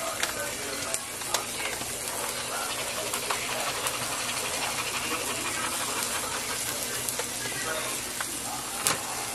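A steady hiss from a pot of cauliflower cheese soup heating on the stove, with the crinkle of a plastic bag of shredded cheese being handled. There are sharp crackles about a second in and one near the end.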